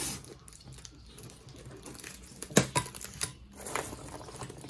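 Clear plastic packaging bag crinkling and being handled, with light knocks of small still fittings against the workbench and one sharp knock about two and a half seconds in.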